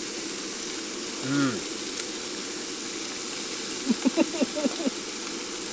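Steady sizzling hiss from a hot frying pan on a gas camp stove. A short falling 'mm' comes about a second in, and a man laughs briefly about four seconds in.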